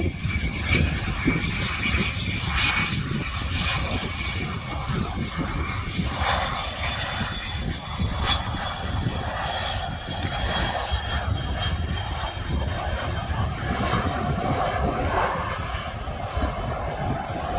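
Cessna 680 Citation Sovereign business jet on landing approach: its twin turbofan engines give a steady high whine over a continuous low rumble.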